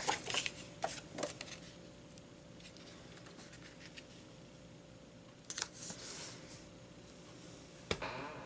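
Quiet handling of paper cardstock on a cutting mat: a few light rustles and taps, a short paper rustle about five and a half seconds in as a card is laid onto the page, and a sharp tap near the end.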